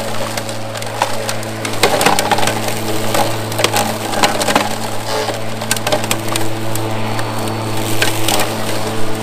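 DeWalt DCMW220 cordless brushless lawn mower running under load with a steady hum, and constant crackling and snapping as the blade cuts through tall, thick grass and weeds.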